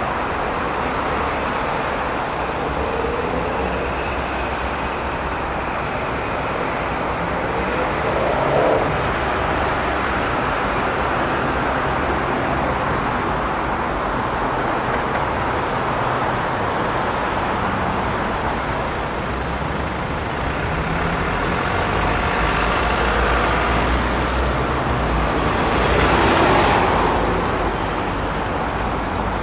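Dense expressway traffic: a steady wash of tyre and engine noise from many cars and trucks. A louder vehicle passes briefly about 8 seconds in, and a bigger one swells up and fades near the end.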